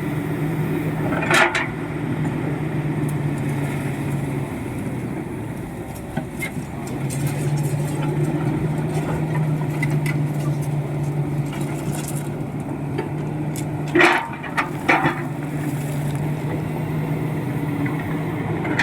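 The 60 HP diesel engine of a Komatsu PC71 hydraulic excavator running steadily. Its note eases off for a couple of seconds about a quarter of the way in, then comes back. There are a few short knocks, one early on and two close together near the end.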